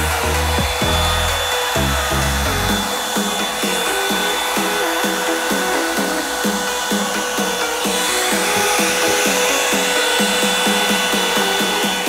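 Revlon One-Step hair dryer brush running steadily, its fan blowing with a steady whine, over background electronic dance music with a regular beat.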